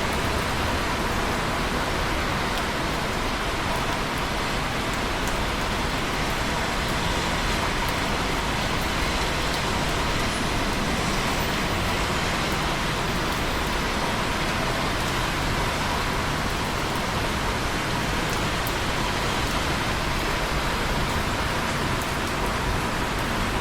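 Steady rainfall, an even hiss of rain on a surface with no let-up or change.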